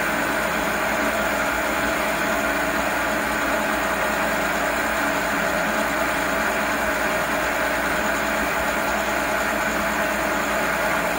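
Inexpensive Chinese metal lathe running steadily while its cutting tool turns down round bar stock into a mandrel.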